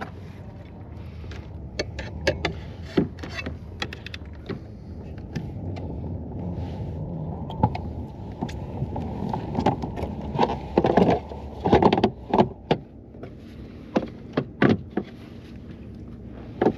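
Irregular knocks and clicks, loudest and most frequent about ten to twelve seconds in, over a steady low hum.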